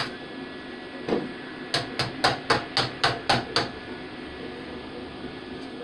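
Hammer striking metal: a knock about a second in, then eight quick sharp taps at about four a second.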